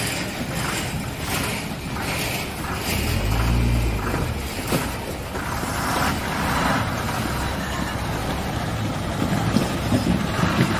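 Heavy loaded truck's diesel engine running at low speed as the lorry pushes through deep muddy water, under a steady noisy wash, with the low rumble swelling louder about three to four seconds in.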